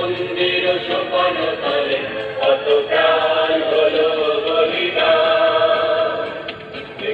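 A recorded song with singing over instrumental backing, playing as dance music, with held sung notes.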